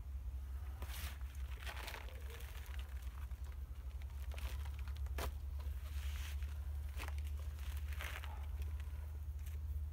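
Hands sifting through loose compost tipped out onto a plastic ground sheet: short, irregular rustles and crackles about once a second, over a steady low rumble.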